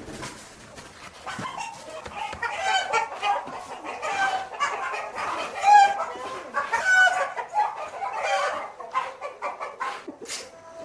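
Chickens clucking, with a rooster crowing: a string of loud calls repeating about once a second through the middle of the stretch.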